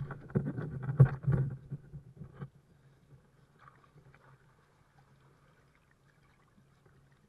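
Water splashing and knocks against a kayak as a paddler climbs back in from the water, busy for about the first two and a half seconds, then only faint drips and small splashes.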